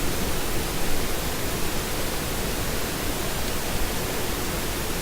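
Steady, even hiss-like noise with no distinct events.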